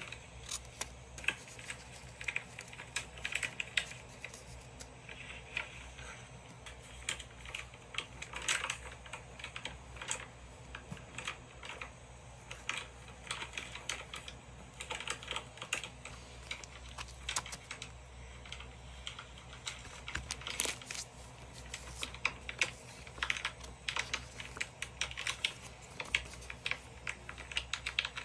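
Paper stickers handled for journal decorating: peeled, picked up and set down with tweezers, and rubbed flat by hand on a paper page, giving an irregular run of small crinkles, clicks and rustles.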